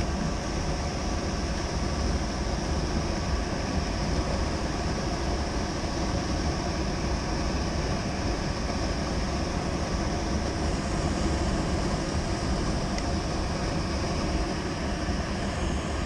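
Steady rush of air and motor hum from a Trane fan-powered box's blower running, heard up close at its open filter access.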